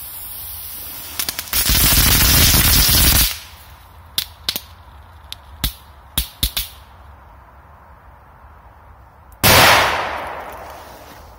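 Korsar 4 firecracker with an effect going off: a loud hiss lasting nearly two seconds, then a scattering of sharp cracks, then a loud bang about nine and a half seconds in that echoes away over a couple of seconds.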